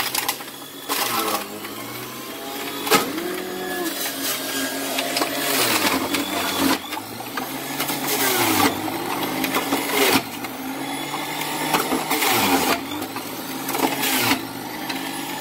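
Black & Decker electric juicer motor running while carrot and cucumber pieces are pushed through it and shredded. Its hum drops in pitch and recovers each time a piece loads it, with loud bursts of grinding about every two seconds.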